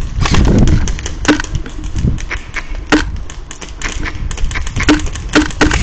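Airsoft guns firing: scattered sharp pops and clicks, some in quick runs, with an evenly spaced string of shots near the end, over a low rumble.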